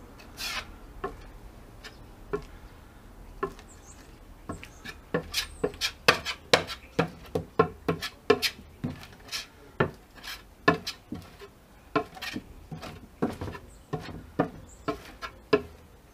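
Wide metal scraper spreading thick adhesive across a wooden board: a run of short scraping strokes, sparse at first and then one or two a second from about five seconds in.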